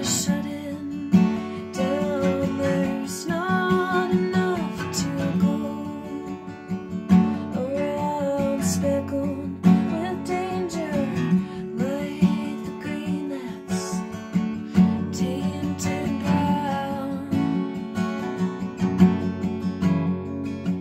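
Steel-string acoustic guitar strummed in a steady song rhythm, with a woman singing held, gliding melody notes over the chords.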